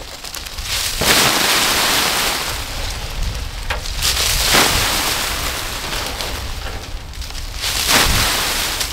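Armfuls of dry leaves thrown onto a leaf-covered tarp, rustling and pattering down like rain, loudest in three big throws: about a second in, about halfway, and near the end.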